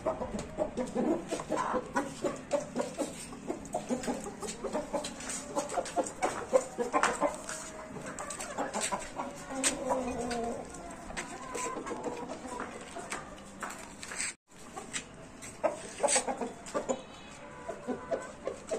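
Gamefowl roosters clucking in their cages, mixed with frequent short sharp clicks. The sound breaks off for an instant about two-thirds of the way through.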